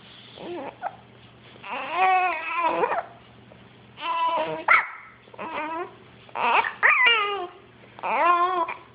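Baby babbling: about five drawn-out vocal sounds that bend in pitch, some rising into short squeals.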